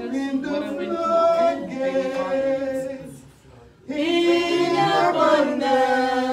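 Unaccompanied singing in two long, drawn-out phrases, with a short pause a little past halfway.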